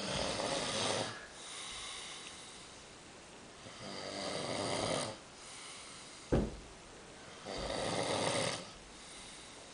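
A man snoring heavily: three long snores about three to four seconds apart, with one short sharp noise between the second and third.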